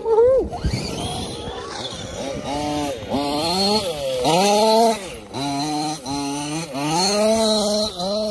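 Small two-stroke petrol engine of a 1/5-scale Losi 5ive-T RC buggy (a Zenoah G320 with a silenced big-bore exhaust) revving up and down in repeated short throttle bursts. A sharp thump comes near the start.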